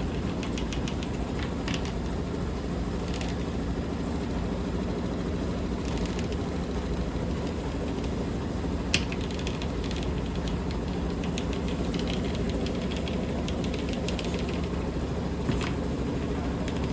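Washing machine in its spin cycle, the drum spinning fast with a steady hum and a constant light rattle of clicks from the load, and two sharper clicks, about nine seconds in and again near the end.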